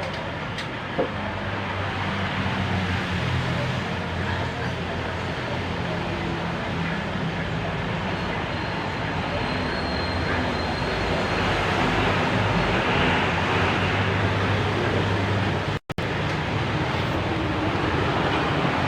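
Steady rumble of motor-vehicle engines and road traffic with shifting low engine tones, swelling louder for a couple of seconds past the middle. The sound cuts out for an instant near the end.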